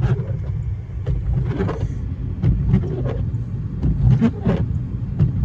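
Cabin sound of a 1998 Honda CR-V driving through deep snow: a steady low rumble of the four-cylinder engine and tyres, with irregular knocks and crunches from the snow.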